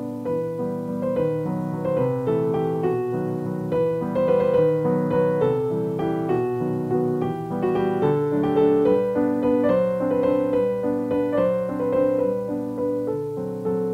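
Background piano music: a gentle melody of single notes over lower accompanying notes.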